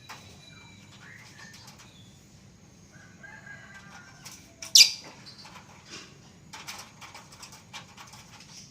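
Lovebirds chirping and fluttering their wings, with scattered short high calls, one loud sharp sound about five seconds in, and a quick run of wingbeats or calls near the end.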